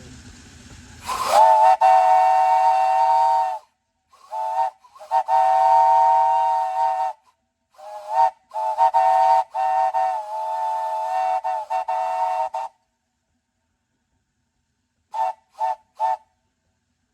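3-inch Lonergan three-chime steam whistle blown on 30–45 psi of steam, sounding a steady three-note chord. A burst of steam hiss comes as it opens about a second in, then long blasts alternate with short toots, and three quick toots sound near the end.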